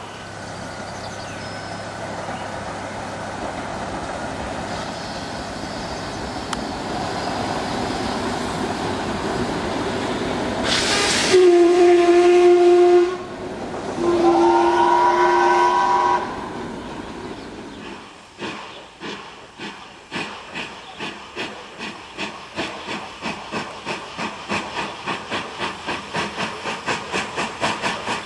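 Czechoslovak class 477 steam locomotive working a train: a steady rolling noise, then two loud steam-whistle blasts, the second rising slightly in pitch. Then the exhaust beat sets in and quickens as the locomotive accelerates, with steam hissing.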